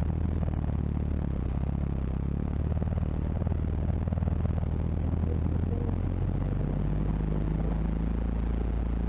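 Off-road truck's engine running at low speed as the truck creeps along a dirt trail, heard from inside the cab as a steady low drone; the engine note shifts a little about halfway through.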